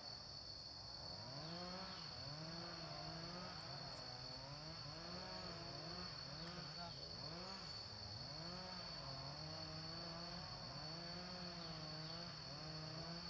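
Insects droning in one steady high-pitched tone, with a lower hum beneath that wavers up and down in pitch throughout.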